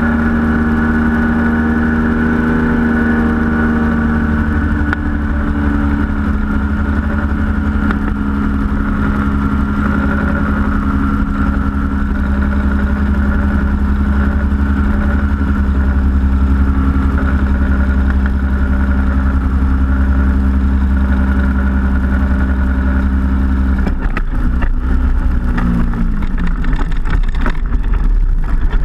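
Powered parachute's engine and propeller running steadily in flight. The engine note drops a little about five seconds in, and near the end it is throttled back, its pitch falling, as the cart touches down and rolls over rough grass with irregular knocks and rattling.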